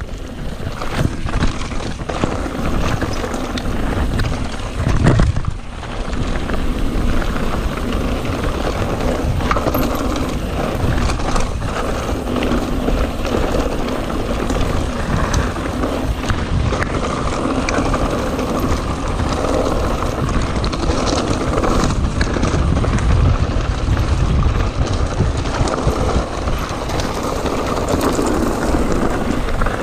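Mountain bike rolling fast over a rough dirt and gravel trail: tyres rumbling and the bike rattling over stones, with wind rushing over the camera's microphone.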